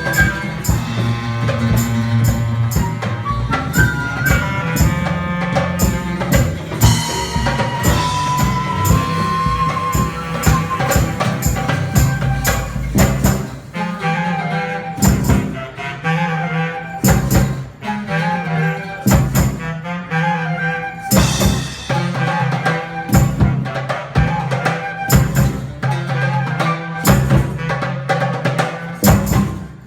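Live band playing an instrumental piece: drum kit under sustained melodic lines, with a run of hard accented hits in the second half.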